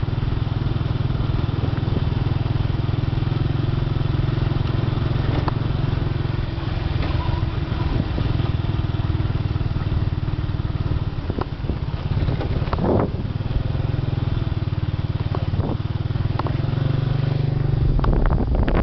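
Motorcycle engine running at a steady speed while riding along, with wind noise on the microphone and a few short knocks from bumps.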